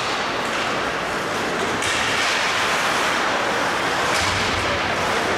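Ice hockey play in an indoor rink: a steady scraping hiss of skate blades on the ice, with a few sharp knocks of sticks or puck.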